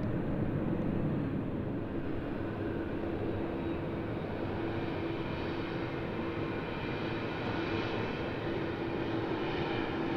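Jet engine noise from an Airbus A330-243's two Rolls-Royce Trent 700 turbofans at climb power as the airliner climbs away after takeoff: a steady rush with a held hum running through it.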